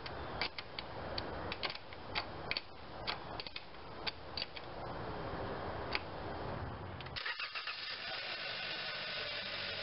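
Ratchet wrench clicking in short, irregular runs as the 10 mm battery terminal nut is tightened. About seven seconds in this gives way abruptly to the steady sound of the Hyundai Sonata's 2.4-litre four-cylinder engine running, turning its newly fitted serpentine belt.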